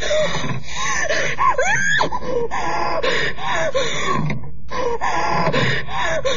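A woman gasping and moaning in pain, her voice rising and falling, with a short pause about two-thirds of the way through: the cries of a woman in labour, performed for a radio drama.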